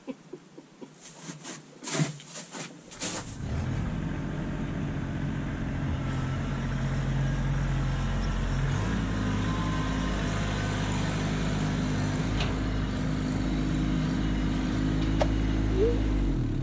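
Kubota LX2610 compact tractor's diesel engine running steadily, coming in about three seconds in after a few clicks and knocks. The engine note shifts slightly near nine seconds, then holds steady.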